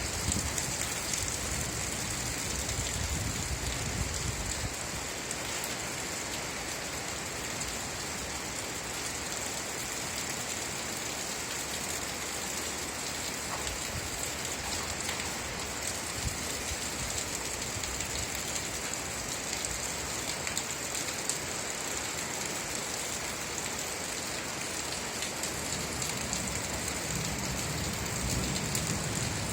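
Steady rain falling, a dense even patter, with a low rumble in the first few seconds and again near the end.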